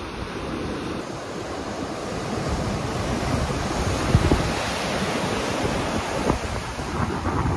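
Sea waves breaking and washing against the foot of a sea cliff and up a small sandy cove, with wind buffeting the microphone. The surf grows louder from about two seconds in.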